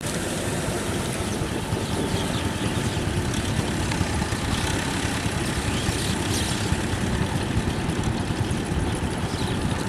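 TAFE 5900 DI tractor's diesel engine running steadily, working a rotary tiller through wet paddy mud.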